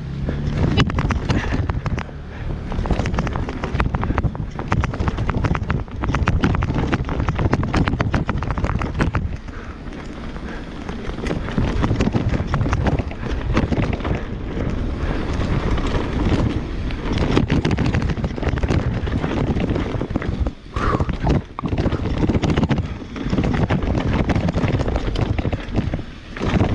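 Mountain bike descending a dirt and rocky trail: wind rushing over the camera microphone with tyre noise and frequent clattering knocks as the bike rattles over rocks and roots.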